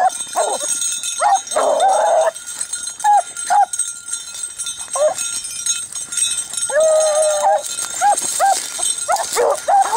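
Beagles baying on a rabbit's trail: a run of short, choppy yelping barks, with two longer drawn-out bawls, one about two seconds in and one about seven seconds in.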